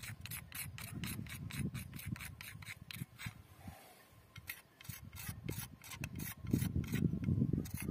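A wooden shepherd's staff being scraped smooth with a piece of mineral-water-bottle glass used as sandpaper, in quick repeated rasping strokes, about four a second, with a short pause midway.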